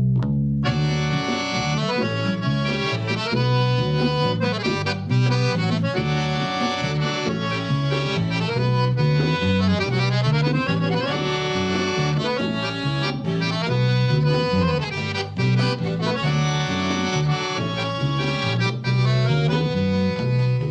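Band playing the instrumental intro of a chamamé, led by an accordion (gaita) over a rhythmic bass line.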